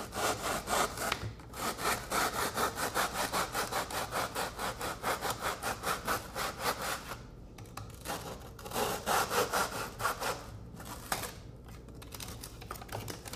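Small hand saw cutting cured two-part urethane foam in quick back-and-forth strokes, about four a second, trimming the excess foam flush with the taxidermy form. The sawing stops briefly about seven seconds in and again near the end.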